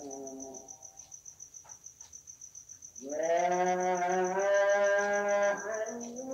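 A man chanting the tarhim, the Islamic praise and sholawat sung before the dawn call to prayer, carried over the mosque loudspeakers. A phrase ends just under a second in, and after a pause of about two seconds a long wavering held note begins, with a new phrase near the end. Crickets chirp steadily throughout.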